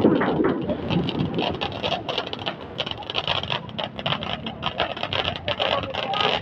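Firework fountains hissing and crackling, a dense, rapid run of small pops without a break.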